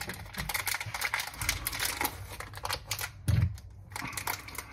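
Plastic candy-bar wrapper crinkling and crackling as it is torn and peeled open, a dense run of small crackles, with one dull thump about three seconds in.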